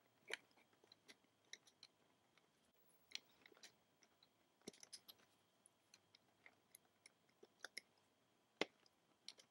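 Faint, scattered small clicks and snaps of rubber bands being stretched and placed over the plastic pegs of a rubber-band bracelet loom, the sharpest one near the end.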